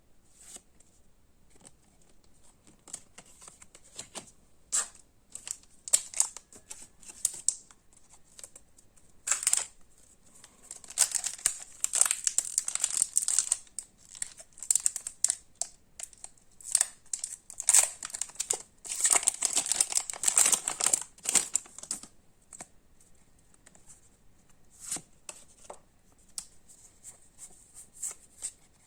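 Pokémon card packaging being torn open and crinkled by hand: scattered sharp crackles, with two longer spells of dense tearing and rustling, about a third of the way in and again past the middle.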